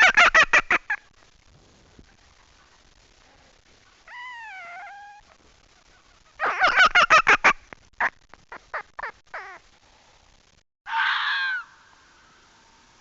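Animal calls: two bursts of rapid, harsh call notes, about eight a second, the second trailing off into spaced single notes, with two shorter pitched cries that waver up and down between them.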